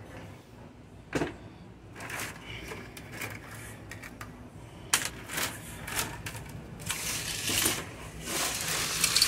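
Scrap computer circuit boards clattering and knocking against one another and the wooden crate as they are handled. One sharp knock comes about a second in, and the clatter grows denser over the second half.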